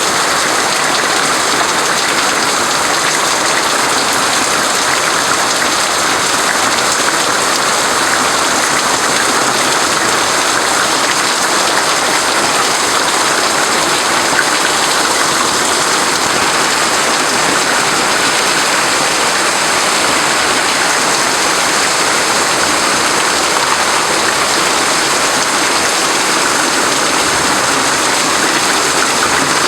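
Heavy thunderstorm rain pouring down steadily.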